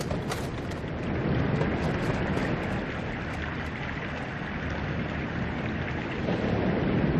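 Steady rushing noise of wind and water around wooden boats, with a low rumble under it.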